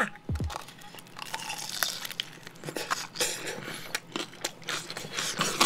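A pan-fried Samyang Buldak king dumpling bitten into, then chewed. Its crust makes many small crunching clicks.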